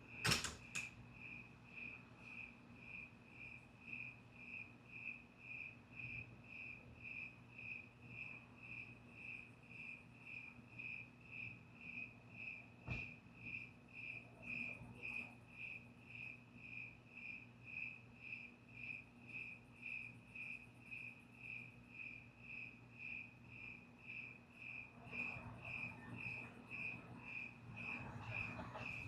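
Cricket chirping in a steady, even rhythm of about two high chirps a second. There is a sharp click just after the start and a fainter one about halfway through.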